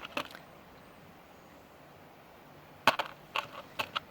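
A few light clicks and taps from handling a metal statement necklace and a tube of jeweler's glue: one just after the start, then three in quick succession about three seconds in.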